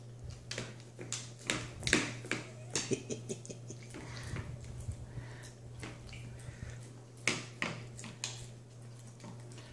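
Dog sniffing and licking at biscuits on a wooden floor: irregular short snuffles and small clicks, over a low steady hum.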